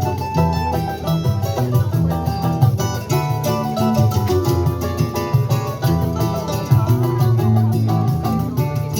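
Choro music played by a small band, led by plucked strings: guitar and a bright, banjo-like cavaquinho picking quick runs over a low bass line.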